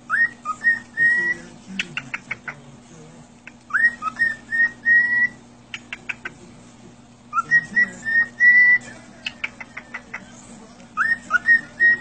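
A cockatiel whistling the same short tune over and over, about every three and a half seconds. Each phrase opens with an upward swoop and runs into a few clear notes held at one pitch. Quick runs of clicks fill the gaps between phrases.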